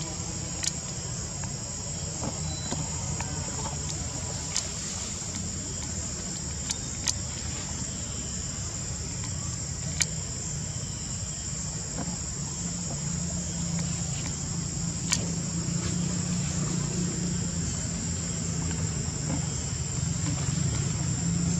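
Steady high-pitched insect drone, like crickets, over a low steady rumble, with a few sharp clicks scattered through.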